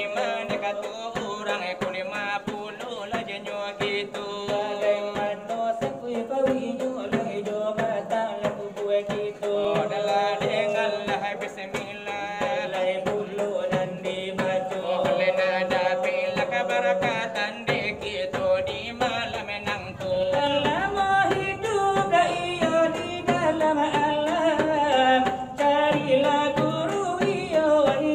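Salawat dulang: men singing a devotional melody while beating large brass trays (dulang) with their hands in a fast, steady rhythm. From about two-thirds of the way in, the sound grows fuller and a little louder.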